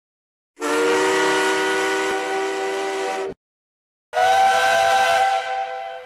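Two separate steam whistle blasts, each a steady chord of several notes over a hiss. The first is lower and lasts about two and a half seconds; the second, higher-pitched, starts about four seconds in and fades away.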